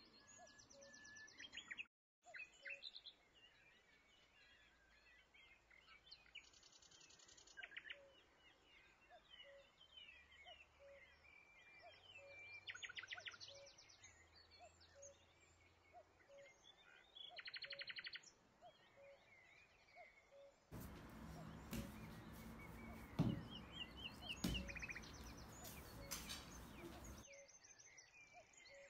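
Faint birdsong: several birds chirping and repeating short trills. About three quarters of the way through there is a louder, fuller stretch with a couple of sharp knocks.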